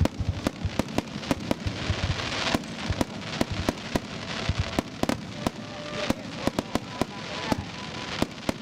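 Aerial fireworks bursting in quick succession. Sharp bangs come irregularly, several a second, over a constant crackling haze.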